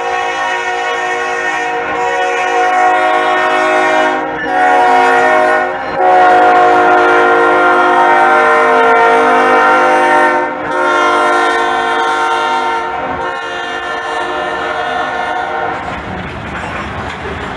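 Freight locomotive's multi-tone air horn sounding in several long blasts with short breaks, the warning for a street crossing. The horn fades, and near the end the rumble and clatter of covered hopper cars rolling past takes over.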